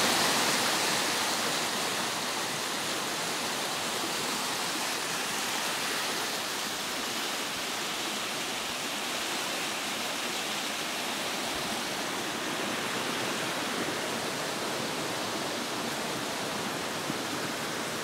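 Water of a small waterfall pouring over rock into its stream: a steady rush of falling water.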